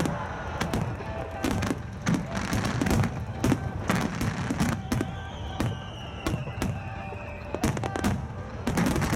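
Starmine fireworks barrage: aerial shells bursting in quick succession, several sharp booms a second with crackle between, over music played along with the show.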